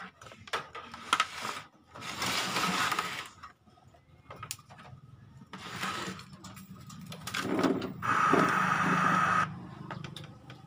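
A CRT television set being handled and turned round on a workbench: scraping and knocking in short bursts, the loudest and longest a scrape of about a second and a half near the end that stops suddenly, over a steady low hum.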